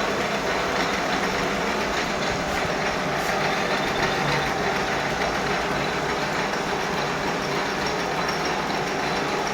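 A machine tool running steadily, boring out new shaft bushes for a submersible pump motor so they fit the reground shaft.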